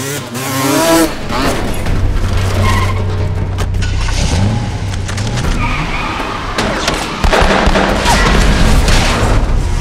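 Action-film chase sound mix: dirt-bike engines revving at the start over a low droning score. From about seven seconds in, a louder stretch of engine noise and spinning, screeching tyres.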